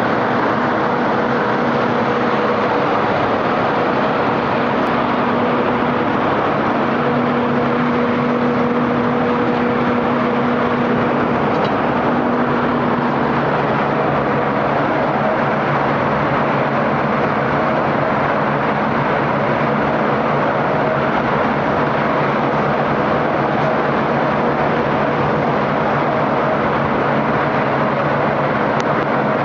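Steady, loud din of iron ore processing machinery: a conveyor belt carrying crushed ore and the ball mill it feeds running continuously, with a low motor hum under the noise.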